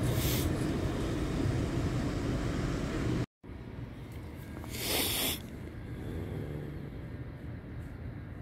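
Tram running with a steady low rumble, cut off suddenly a third of the way through; then a quieter stretch with a short hiss about five seconds in.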